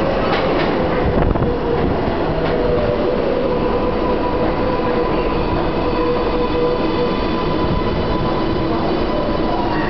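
New York City subway train on the 4 line rolling into the station past the platform and braking, with a steady rumble of wheels and a held whine. The whine cuts off as the train comes to a stop near the end.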